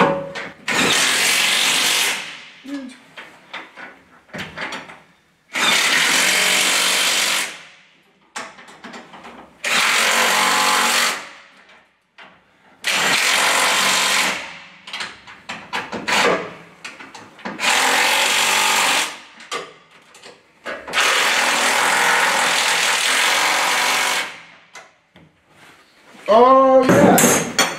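Cordless impact wrench run in six bursts of one to three seconds each, tightening the nuts on the truck chassis's spring hangers and crossmember, with light metal clatter between bursts.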